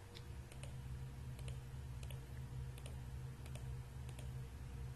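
Computer mouse clicking in quick pairs, about one pair every second or less, over a steady low hum.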